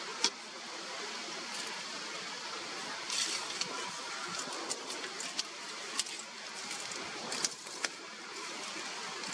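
Dry doum palm fronds and leaf litter crackling and clicking in scattered sharp snaps, with a small cluster about three seconds in, over a steady outdoor hiss.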